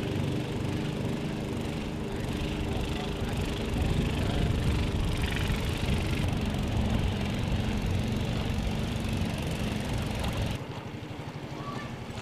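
A motor vehicle engine running steadily. About ten and a half seconds in it cuts off suddenly to a quieter background with a fast, even low pulsing.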